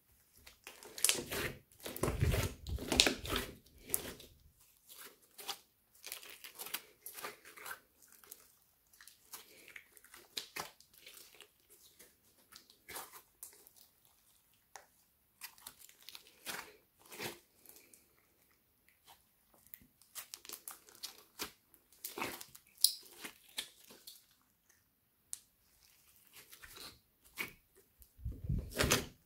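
A large mass of mixed slime being kneaded and stretched by hand: irregular wet clicks, squelches and crackles, busiest and loudest about one to four seconds in and again near the end.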